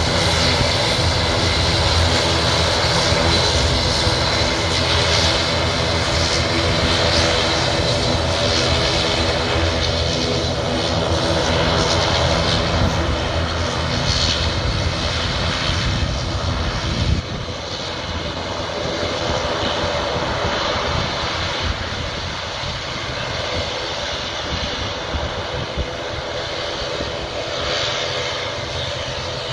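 Twin turboprop engines of an ATR 72-212A airliner running at taxi power: a steady drone made of several held propeller and engine tones. It gets a little quieter about halfway through as the aircraft moves away and turns.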